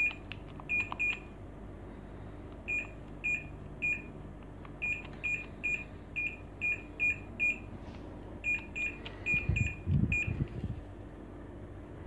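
Samsung mini-split air conditioner's indoor unit beeping once for each remote-control button press: about twenty short, identical high beeps in quick runs. A steady low hum runs underneath, and a few low rumbles of handling or wind noise on the microphone come near the end.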